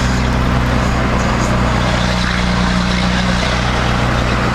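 Dodge pickup's Cummins turbo diesel engine and road noise while cruising with the torque converter locked up, the engine holding a steady, low speed.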